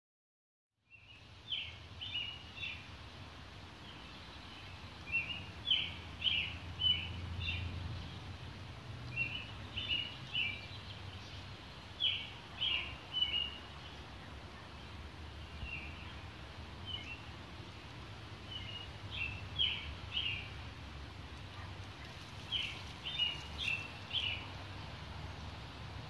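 Birdsong: a bird repeats short phrases of quick chirps every few seconds, over a steady low rumble. It starts about a second in, after silence.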